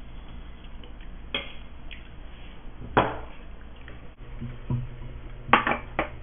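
Spoons clinking against ceramic bowls and a metal cooking pot during a meal: a few separate clinks and knocks, the loudest about three seconds in and two more close together near the end.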